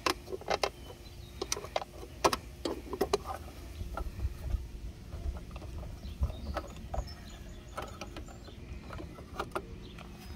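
Irregular sharp clicks and knocks of an extension cord plug and an outdoor outlet's plastic weatherproof cover being handled, thickest in the first few seconds and sparser after.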